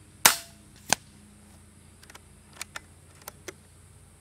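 FX Wildcat MK2 Compact .25 regulated PCP air rifle firing once: a sharp crack with a short tail, then a second, quieter crack about two-thirds of a second later. A few light clicks follow.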